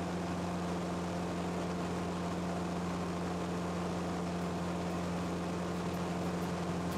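A Cessna 172's four-cylinder Lycoming engine and propeller droning steadily in flight, heard from inside the cabin. A low, even hum runs under a broad hiss of propeller and air noise.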